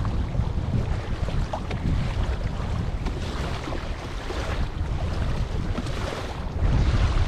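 Strong wind buffeting the microphone with a heavy rumble, over choppy lake water splashing against a kayak hull. A stronger gust comes near the end.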